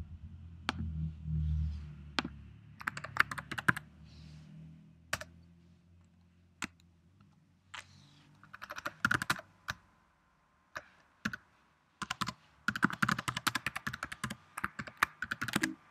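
Typing on a computer keyboard: a few single key or button clicks, then quick runs of keystrokes as commands are typed, with a longer run near the end.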